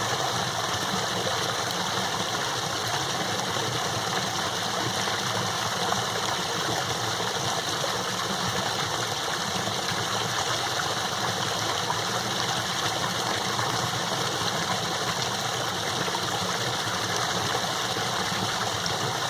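Small woodland waterfall running strong with snowmelt: a steady rush of falling water.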